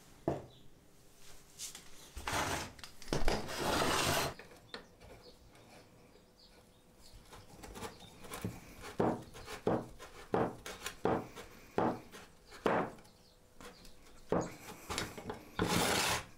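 Small steel parts and a cast-iron drill-press vise being handled on a wooden workbench: a run of separate knocks and clicks, with longer scraping stretches near the start and again near the end.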